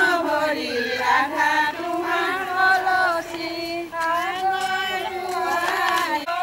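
A group of women singing an Assamese wedding song (biya naam) together while walking, in long, drawn-out sung lines.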